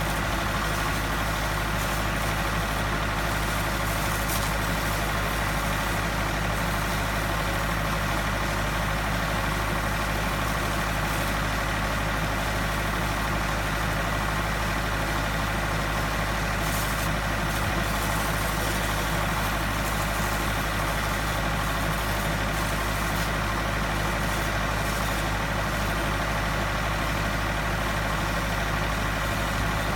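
Steady, unchanging machinery drone with several constant tones and a hiss over it, from the high-pressure water pumping and live substation equipment while a water jet washes the insulators.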